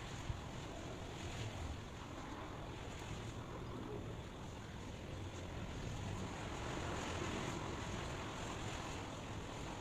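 Steady white-noise rush that swells and eases gently, with a single short click just after it begins.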